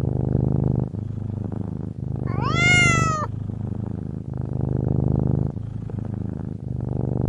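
Domestic cat purring in a steady rumble that swells and dips about once a second. About two and a half seconds in comes one meow that rises, then falls.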